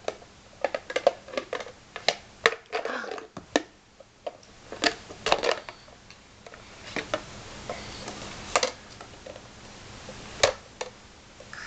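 Small plastic shape-sorter blocks clattering and knocking against a plastic bucket as they are dropped in and the bucket is tipped and handled: a string of irregular sharp clicks and knocks.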